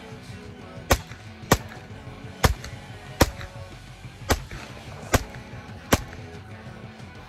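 Seven single shots from a CZ Scorpion Micro 9mm pistol-caliber carbine, fired semi-automatically at a steady pace of roughly one a second, over background music.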